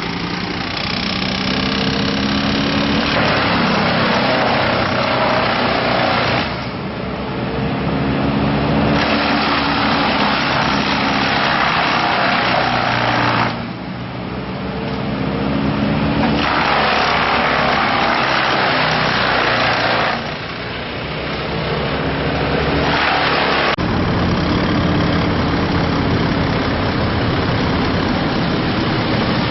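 Gas engine of tree-removal equipment running, with repeated loud spells of several seconds each where it cuts or chews wood and its pitch sags under the load, then eases off between them.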